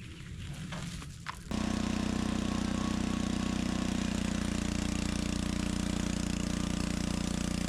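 Portable sawmill engine running steadily. About a second and a half in, the sound jumps suddenly to a much louder, even drone.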